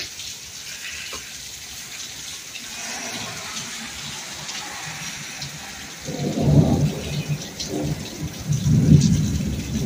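Steady rain falling. From about six seconds in, thunder rumbles low and rolling, swelling twice and loudest near the end.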